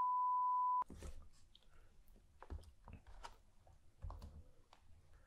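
A steady high test-tone beep that cuts off abruptly under a second in, followed by close-up eating sounds: scattered soft crunches, clicks and chewing around a shrimp sub sandwich.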